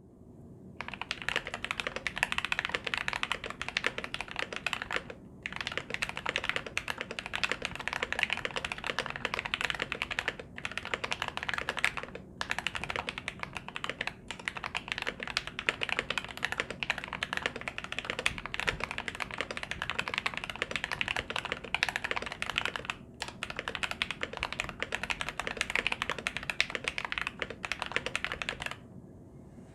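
Fast, continuous typing on a CIY Tester68 mechanical keyboard with Gateron Cap v2 milky yellow linear switches lubed with Krytox 205g0 and a shelf-liner-dampened case. The typing breaks off in a few brief pauses and stops just before the end.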